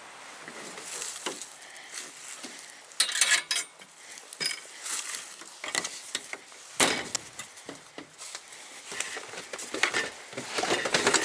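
Clattering and knocking of camp gear being packed up: a folding plastic table handled and loaded into the cargo area of a Toyota 4Runner. There is a sharp knock about two-thirds of the way through and a run of quick rattles near the end.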